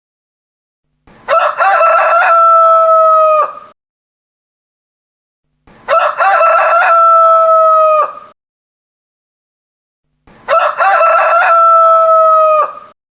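A rooster crowing three times at even intervals about four and a half seconds apart, the same crow repeated each time. Each crow lasts about two and a half seconds: a few short broken notes, then a long held note that drops away at the end. Dead silence lies between the crows.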